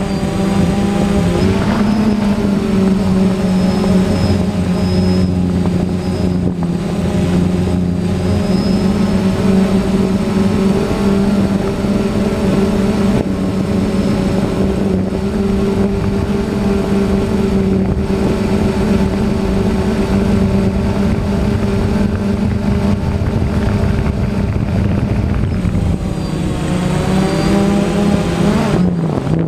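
DJI Phantom quadcopter's electric motors and propellers humming steadily in flight. The pitch rises about a second in and drops shortly before the end.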